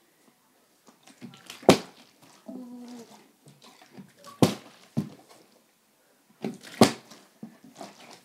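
Partly filled plastic water bottle being flipped and landing on a carpeted floor with a sharp thud three times, about two and a half seconds apart, with lighter knocks of the bottle being handled in between.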